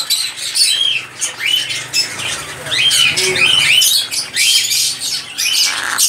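African grey parrot calling in a rapid string of short whistles, chirps and squawks, several a second, some gliding up or down in pitch.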